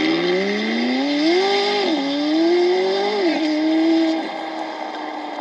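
A car engine accelerating hard through the gears: its pitch climbs, drops at a gear change about two seconds in, climbs again and drops at a second change just past three seconds, then holds briefly before falling quieter near the end.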